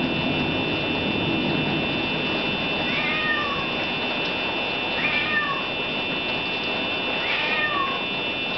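Steady rush of wind-driven rain from a tornado's storm against the windows, with a steady high whine underneath. Three short animal-like calls, each falling in pitch, come about two seconds apart.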